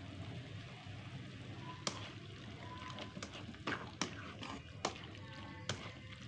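Beef cooking in a pan of black pepper and soy sauce with a steady sizzle, while a spatula stirs it, knocking against the pan several times.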